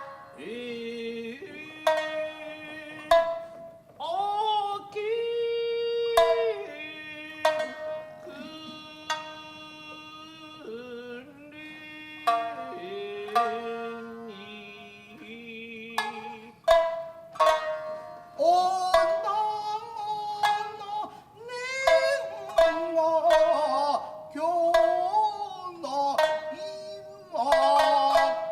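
Tokiwazu shamisen accompaniment for Japanese dance: sharp, plucked shamisen phrases, with a singer holding long, bending notes over them.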